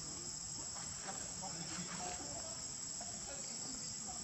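Steady, high-pitched insect chorus, an unbroken buzzing trill.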